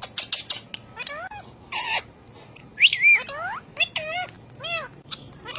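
Parrot chattering: a quick run of clicks, then short calls that slide up and down in pitch, with a brief harsh burst just before two seconds in and the loudest calls about three seconds in.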